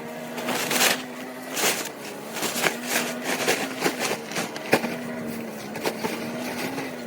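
A small engine running at a steady speed, with repeated short, sharp crackling snaps over it, about one or two a second.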